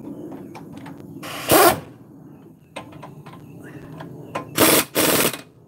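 Pneumatic impact wrench firing in short bursts, snugging up a car's wheel lug nuts: one burst about a second and a half in, then a short double burst near the end.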